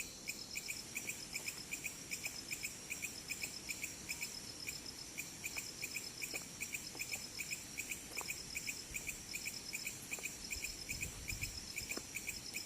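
Crickets chirping in a steady, even rhythm of about four chirps a second.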